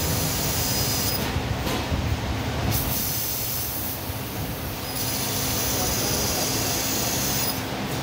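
Senfeng CNC laser cutting machine cutting steel plate: a steady machine noise with the cutting head's high gas hiss. The hiss drops away about a second in, comes back, and cuts out again near the end as the head moves between cuts.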